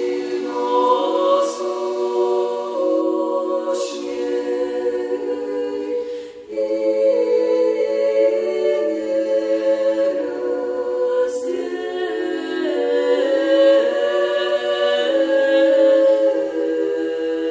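Unaccompanied choir singing slow, held chords, with a short break about six seconds in.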